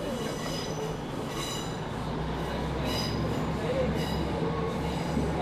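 Running noise inside a moving Class 150 diesel multiple unit: a steady rumble of the underfloor diesel engine and wheels on rail, with high-pitched wheel squeal coming and going. A low throbbing hum from the engine sets in about two seconds in.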